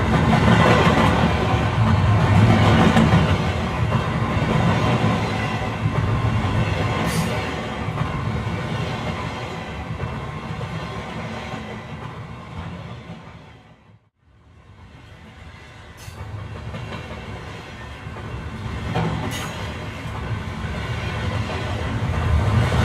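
Train running, heard from on board: a steady rumble with a few sharp clicks. It dies away almost to nothing about halfway through, then builds up again.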